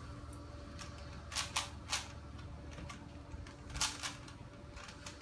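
Plastic twisty puzzle being turned by hand: a scattered run of sharp clicks, a cluster about a second and a half in and another near four seconds.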